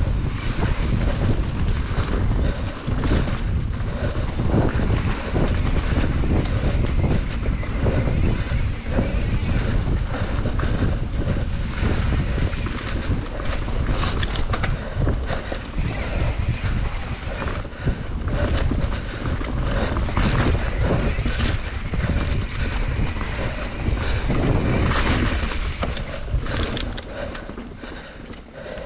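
Wind buffeting the camera microphone while riding a mountain bike on dirt singletrack, mixed with tyre rumble and many short rattling clicks and knocks from the bike over the rough ground. The noise drops near the end.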